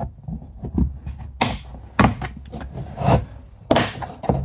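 Plastic door armrest trim being pried loose with a plastic trim removal tool: a series of sharp clicks and knocks, four of them louder, with softer handling thumps in between.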